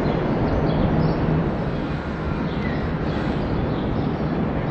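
Steady city street ambience: a low traffic rumble, with a low engine hum that fades out about a second and a half in, and small birds chirping now and then.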